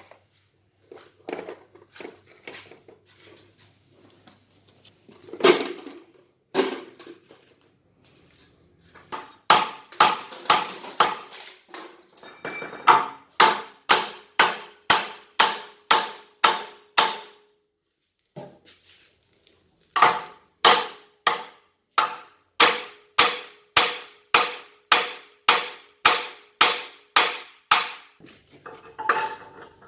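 Hammer striking metal parts of a generator alternator being taken apart. A few light, uneven knocks come first, then two long runs of steady ringing blows about two a second, with a short pause between them.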